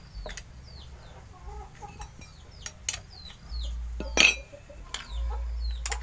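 Sharp metal clinks of steel T-handle wrenches knocking against a motorcycle's front disc brake caliper, a few times, the loudest about four seconds in, with chickens clucking throughout.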